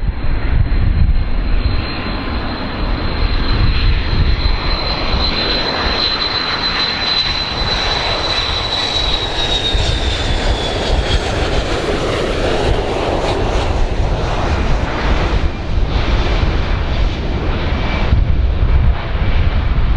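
Boeing 727's three Pratt & Whitney JT8D turbofans on landing approach: a loud jet rumble with a thin high whine that holds steady, then falls in pitch about nine to eleven seconds in.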